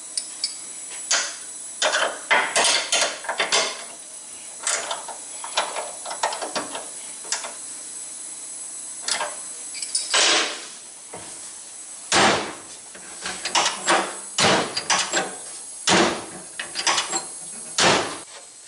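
Irregular knocks, taps and clatter of metal hand tools and parts as a door latch support bracket is fitted and worked on in a car's door jamb, over a steady faint hiss.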